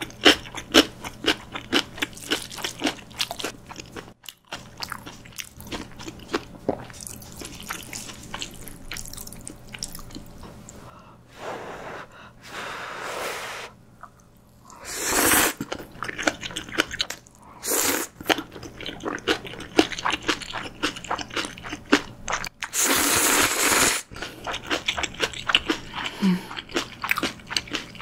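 Close-miked mouth sounds of eating: steady wet chewing with rapid small clicks and smacks, broken several times by long slurps as Chapagetti (jjajang ramyun) noodles are drawn in, the loudest about halfway and again later.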